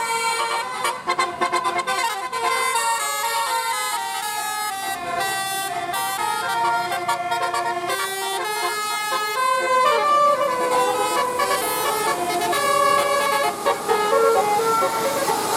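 Bus basuri telolet air horn playing a melody: a quick run of stepped horn notes, several tones sounding together, changing every fraction of a second.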